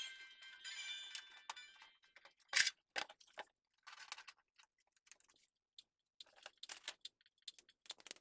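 Music tails off over the first two seconds, then scattered small clicks and light metallic clinks of computer parts and screws being handled during a PC build, the sharpest about two and a half seconds in.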